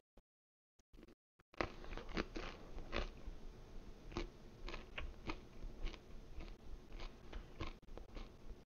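A man chewing a bite of baked frozen pizza close to a headset microphone: irregular crisp crunches and wet mouth clicks, several a second, starting about a second and a half in.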